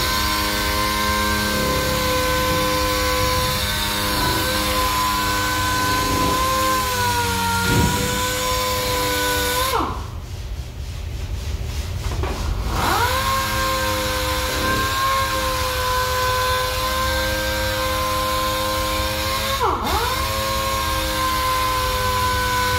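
Pneumatic (air-powered) sander running with a steady whine and air hiss, its pitch dipping a few times. About ten seconds in it stops and winds down, then spins back up nearly three seconds later, with another short dip near the end.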